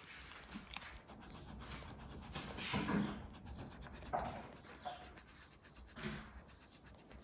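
Shih Tzu dog panting in quiet, uneven breaths, loudest about three seconds in.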